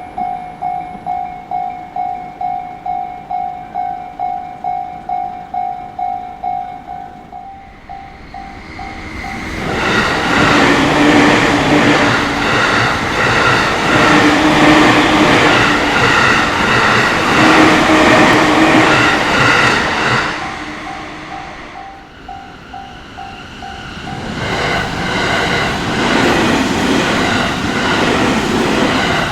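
Japanese railway level-crossing warning bell dinging about twice a second, then a train passing the crossing loudly with wheel clatter. The bell shows through again for a moment at about 21 seconds before a second train passes.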